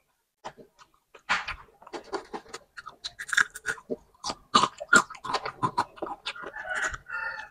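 Close-miked mouth sounds of a boy eating battered fried chicken feet: wet chewing, lip-smacking and gnawing. They start about a second in and keep on as a dense run of irregular clicks and crackles.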